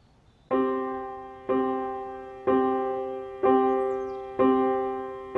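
Slow piano introduction to a song: the same chord struck about once a second, five times, each ringing out and fading before the next.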